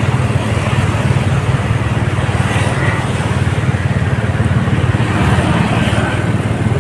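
Road traffic: motorcycles, a van and a car passing by, over a steady low rumble.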